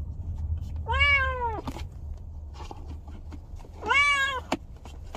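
Cat meowing twice from inside a plastic pet carrier: a long meow about a second in and a shorter one near four seconds, each rising a little and then falling, over a low steady hum.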